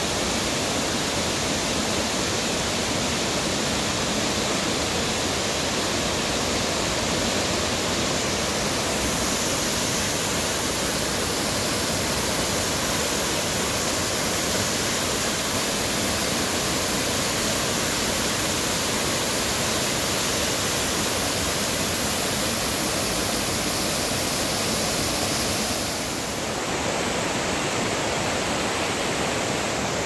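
Rain-swollen mountain stream rushing over rock cascades and small waterfalls, a steady, powerful roar of water. Its tone shifts slightly near the end.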